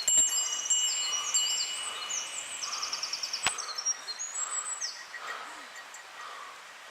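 Wild songbirds singing: several quick trilled and chirped phrases overlapping, with one long steady whistled note held for about the first two seconds. Two sharp clicks, one near the start and one about halfway through.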